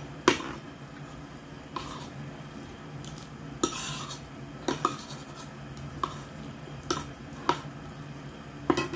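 Metal spoon clinking and scraping against a ceramic bowl: about ten short sharp clinks at irregular intervals of roughly a second, the loudest just after the start, with a brief scrape in the middle.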